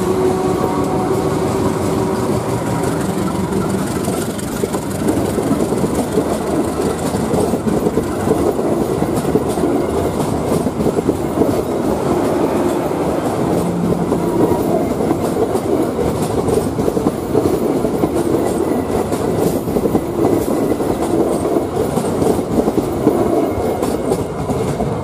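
Indonesian CC201 diesel-electric locomotive passing close by with its engine running, followed by a long rake of passenger coaches rolling past, wheels clattering steadily over the rail joints.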